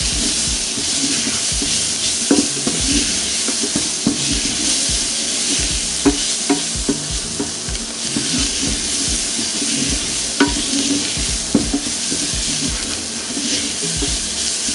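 Onions sizzling steadily as they sauté in a saucepan, stirred with a wooden spoon that knocks against the pan now and then.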